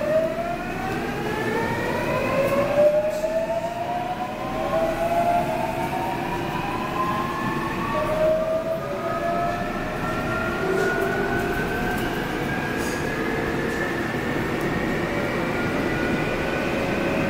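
Seoul Subway Line 8 electric train heard from inside the passenger car while accelerating: the traction motors' whine climbs steadily in pitch in several stacked tones, shifting to a new set of rising tones about three seconds in and again about eight seconds in, over a steady rumble of the running gear on the track.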